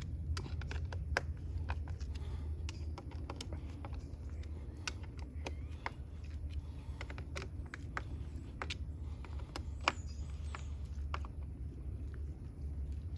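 Screws being hand-tightened in a cross pattern: irregular light clicks and taps of the screwdriver working the screws, one after another, over a steady low hum.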